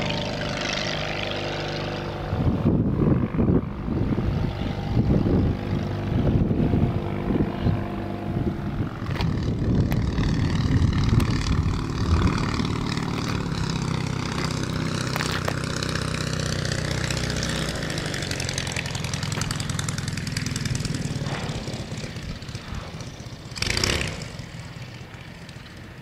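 Half-VW engine of a Legal Eagle ultralight running steadily as the plane flies past, fading over the last few seconds as it comes down to land. Wind buffets the microphone in gusts through the first half, and a brief loud rush of noise comes near the end.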